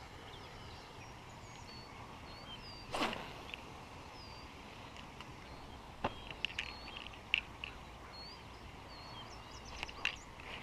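Small birds chirping faintly, with the swish of a spinning rod being cast about three seconds in and a few short clicks of the reel later on.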